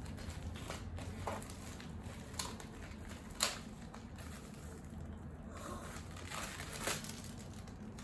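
Crinkling and rustling of a small plastic bag of toy building bricks being handled and opened, with scattered clicks and one sharper click about three and a half seconds in.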